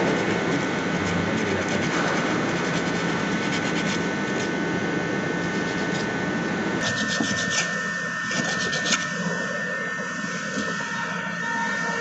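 Emery paper scrubbing back and forth on the steel mating face of a contactor's magnet core, a continuous scratchy rubbing that turns to quicker, sharper strokes about seven seconds in. The rubbing cleans off the rust and dust that stop the fixed and moving cores from seating flat, the cause of the contactor's humming.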